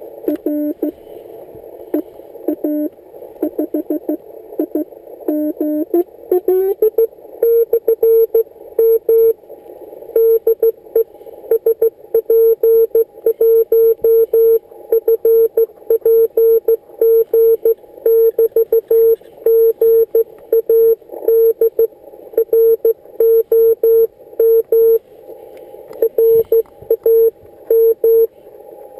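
Morse code (CW) tones from a Yaesu FT-817ND transceiver over a steady band of receiver hiss. Fainter keyed tones at first, then about six seconds in a rising glide in pitch. After that a strong tone at one pitch keys out dots and dashes.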